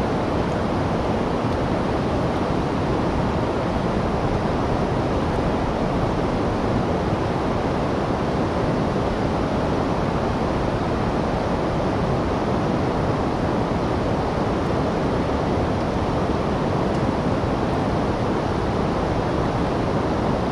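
Steady rushing of a flowing river, a constant even noise with no breaks.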